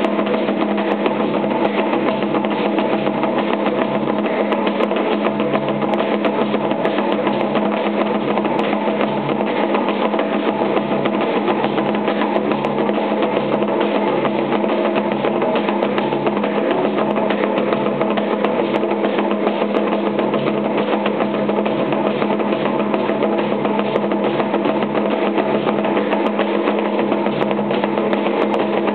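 Live drumming on tall barrel hand drums, some struck with thin sticks, in a fast, driving rhythm with a low beat about twice a second.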